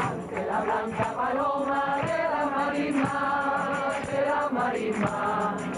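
A group of voices singing a song together in long held lines, with a sharp beat struck about once a second.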